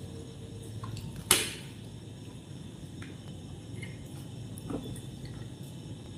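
Metal spoon and fork clinking and scraping against a plate of rice: a few light clinks, with one sharper clink about a second in, over a low steady hum.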